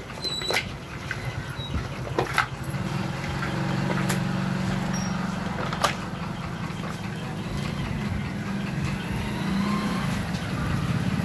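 A steady low engine hum, like a motor vehicle idling close by, settling in about two and a half seconds in. Several sharp clicks and knocks come in the first half, from hands working marinated chicken in a steel mixing bowl.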